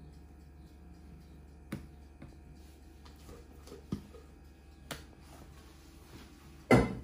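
Silicone spatula working mousse in a metal cake frame: a few light clicks and taps, then a louder thump near the end, over a low steady hum.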